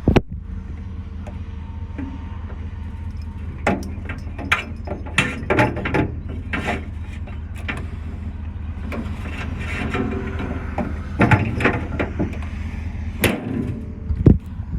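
Chevrolet Silverado 3500HD's 6.0 gas V8 idling steadily, under a series of irregular knocks and clanks, sharpest at the very start and again near the end.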